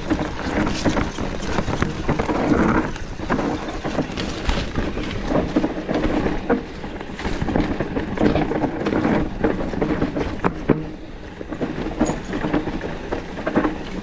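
Santa Cruz Megatower full-suspension mountain bike riding a dry, dusty forest trail: a steady rushing noise of tyres on dirt and wind at the microphone, with frequent rattles and knocks from the bike over roots and stones.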